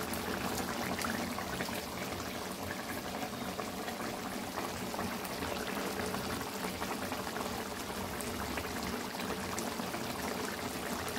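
Thick chicken curry gravy simmering in a pan, a steady bubbling with many small pops.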